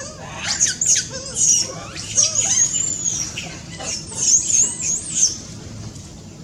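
Baby monkey screaming: a run of high-pitched squeals that waver and swoop up and down, starting about half a second in and stopping just after five seconds.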